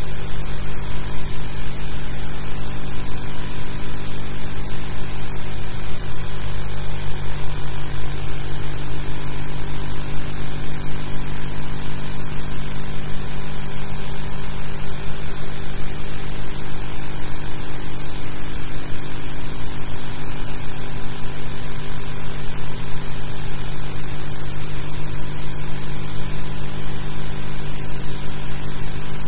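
Steady hum and hiss with a few constant tones, even in level throughout, typical of the background noise on an old film soundtrack.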